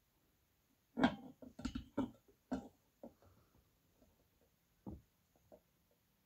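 Parts of a ceiling fan motor being handled: a string of irregular knocks and clicks, loudest and closest together in the first few seconds, then sparser, with one more knock near the end.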